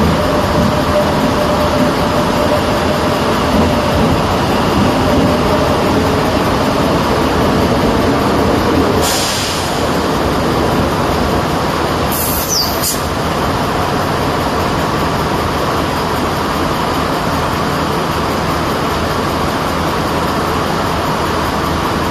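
Renfe series 592 diesel multiple unit standing with its underfloor diesel engines idling, a steady rumble. Two short hisses cut in about nine and twelve seconds in.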